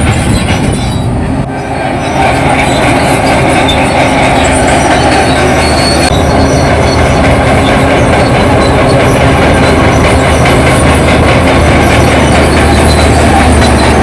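Crawler bulldozer working, its diesel engine running under its steel tracks' squeal and clank. Loud and steady, with a short dip about a second in.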